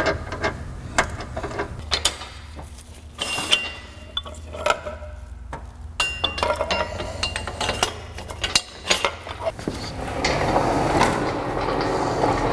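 Hand ratchet clicking in short runs as engine mount bolts are run down from above, with small metal clinks of tools. About ten seconds in, a steadier rushing noise takes over.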